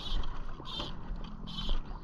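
Fly line pulled out by hand in three quick pulls, a short zipping hiss with each pull about every 0.8 s, over the low wash of river water around the wader.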